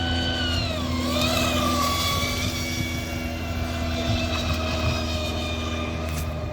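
Electric motors of two RC deep-V racing boats running at speed: a pitched whine that drops briefly about a second in as they rev down, then climbs back and holds steady.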